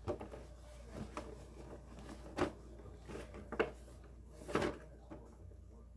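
Faint knocks and bumps, about five spread over a few seconds, from handling and moving a large cardboard-and-plastic toy box.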